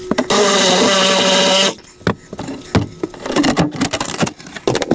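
A handheld power tool runs with a steady whine for about a second and a half as it cuts into the rotted camper floor, then stops. Irregular knocks and cracks follow as rotten wood and old plywood flooring are broken and pried out by hand.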